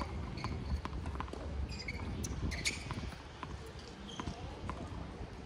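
A tennis ball bounced repeatedly on a hard court before a serve, a series of short knocks among other scattered ball impacts, over a low rumble.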